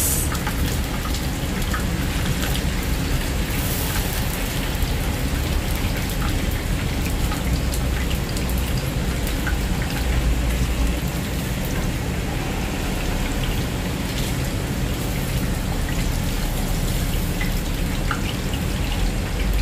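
Batter-coated chicken wings deep-frying in hot oil in a pan: a steady sizzle with constant small crackles.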